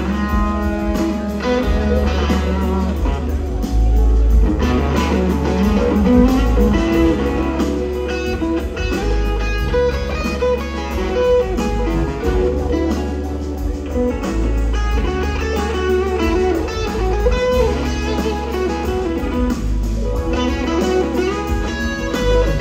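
Live band playing in concert: electric guitars over bass, drums and keyboards, at a steady loud level.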